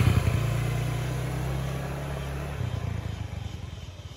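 A motor vehicle's engine running as it passes close by and then fades away steadily.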